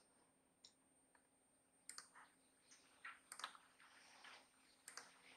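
Near silence, broken by a handful of faint, sharp clicks from a laptop being operated.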